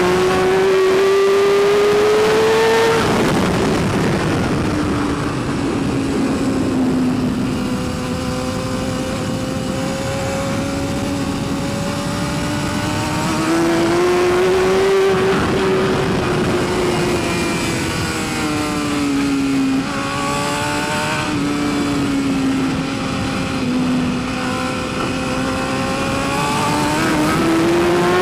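A 2012 BMW S1000RR's inline-four engine running at racing speed. Its pitch climbs high, drops away, and climbs again several times as the rider shuts off and gets back on the throttle.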